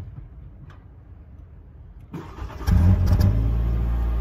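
2021 Nissan Sentra SV's 2.0-litre four-cylinder engine being started, heard at the exhaust tip. A knock comes at the very start. About two seconds in the starter cranks briefly, then the engine catches with a short flare of revs and settles into a steady idle.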